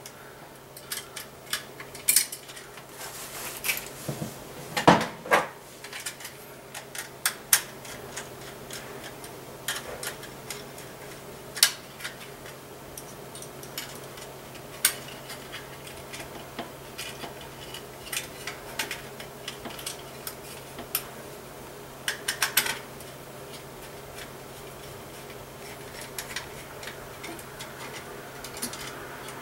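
Irregular small clicks and light metallic taps as stripped wire ends are hooked around, and worked under, the screw terminals of a small plastic alarm device, with clusters of taps about five seconds in and again near the end.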